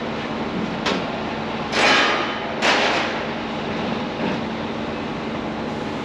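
Construction-site machinery running with a steady low hum, broken by a sharp click about a second in and two short, harsh rushes of noise about a second apart, near two and three seconds in.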